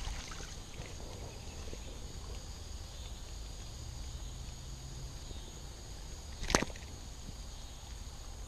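Quiet outdoor background with a steady high-pitched hum, broken about six and a half seconds in by one sharp knock.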